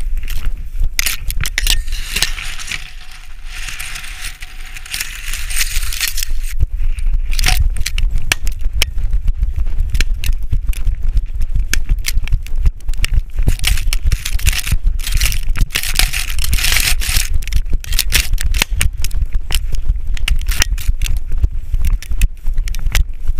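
Dry brush and grass crackling and scraping against a body-worn action camera as it pushes through cover, over a low rumble of wind and handling. The crackle turns dense and rapid about six seconds in.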